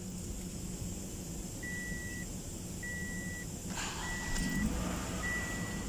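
Toyota RAV4 dashboard warning chime beeping over and over with the ignition on: a single high beep about half a second long, roughly once a second, over a low steady hum. A brief low rumble swells about four seconds in.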